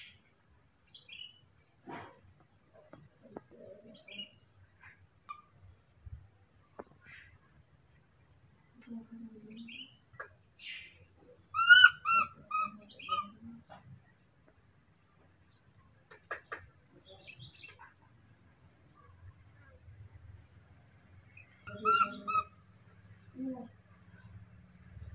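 Loud chirping calls: a quick run of about five short notes about halfway through and another short run near the end, over a steady high-pitched insect drone and scattered faint clicks.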